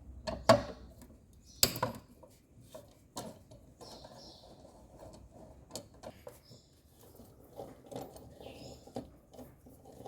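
Scattered clicks and metallic clinks of a hand tool and loose screws as the stator screws of an LG direct-drive washing machine motor are undone, with faint handling noise between; the sharpest knocks come in the first two seconds.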